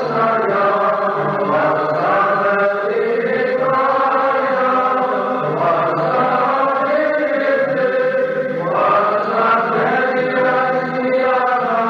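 Choir chanting a Paschal hymn in Church Slavonic, one unbroken sung line.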